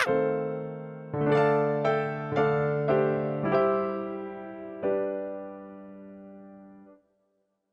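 Background music: a short electric piano phrase, notes struck about once a second and each dying away, the last one held and fading out about seven seconds in.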